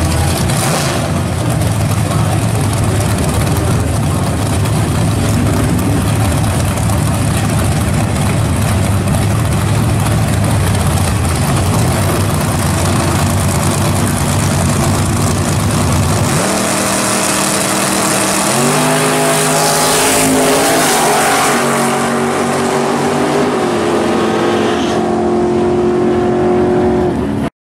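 Drag-race car engines running at the starting line with a steady low rumble. About 16 seconds in, the cars launch and their engine notes climb in pitch through several gear changes as they pull away down the strip. The sound cuts off abruptly at the very end.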